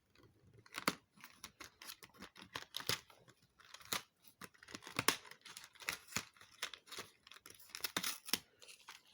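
Cardboard advent calendar compartment being torn open by hand, with irregular crackling and crinkling of the paper and packaging.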